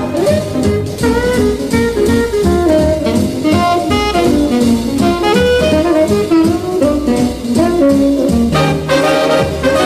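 Swing-era jazz music: a horn melody moving in steps over a steady beat.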